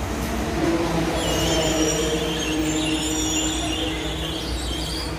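Motor vehicle engine running steadily, with a low rumble and a thin high-pitched whine over it from about a second in.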